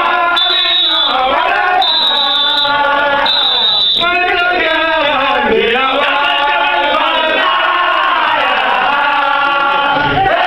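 Baye Fall devotees chanting together in a dense group of mostly men's voices, a Sufi religious chant. Three short, high, whistle-like tones cut through in the first four seconds.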